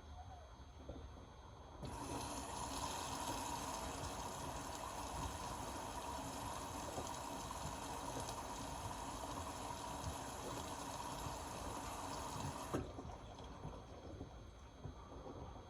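Indesit Innex BWE 91496X washing machine taking in water: steady rushing of water through the inlet valve as the machine fills. It switches on about two seconds in and cuts off suddenly as the valve closes, near the end.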